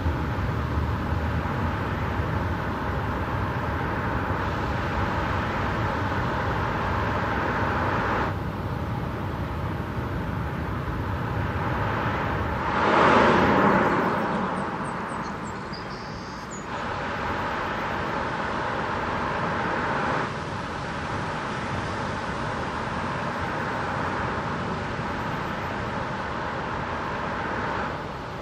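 Car driving on an open road: steady tyre and wind noise, with one pass-by whoosh that swells and fades about halfway through. The noise steps up or down in level a few times.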